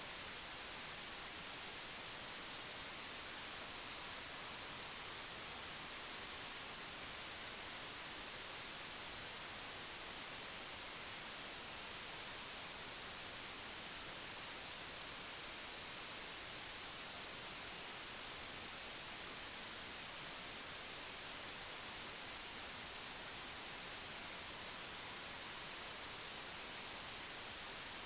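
Steady, even hiss like static, brightest in the highs and unchanging throughout, with no other sound standing out.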